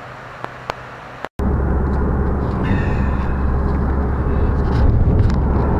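Quiet outdoor ambience with two faint clicks, then an abrupt cut, about a second in, to steady engine and road rumble inside a moving car's cabin.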